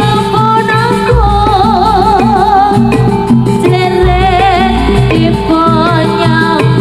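Jaranan dance music played loud over a sound system: a wavering, vibrato-laden melody over repeating percussive notes and a deep bass, which drops out briefly near the start.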